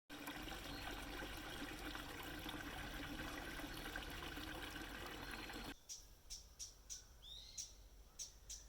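Steady, faint outdoor background noise that cuts off abruptly near the end, followed by a small bird's short high chirps, about three a second, with one sliding call among them.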